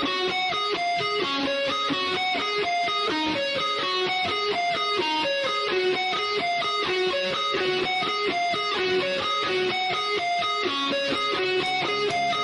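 Background music led by a guitar playing a quick run of plucked notes at a steady level.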